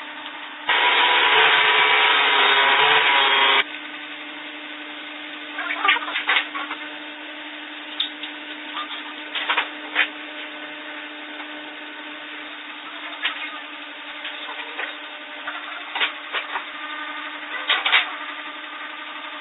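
A power tool hums steadily. A loud, even burst of noise lasts about three seconds near the start, then wood is knocked and tapped at intervals over the hum.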